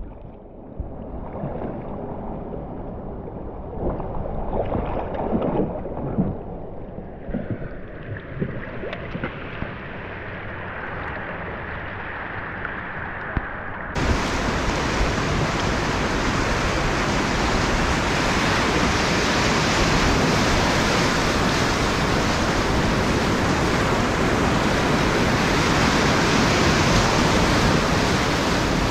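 Whitewater rapids rushing around an open canoe. The sound is muffled at first, with a few irregular splashes. About halfway through it turns abruptly into a loud, full, steady roar of white water as the canoe runs through the rapid.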